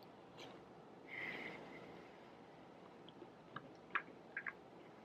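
Faint chewing of a mouthful of pan-cooked chicken and rice, with a few small wet mouth clicks in the last couple of seconds.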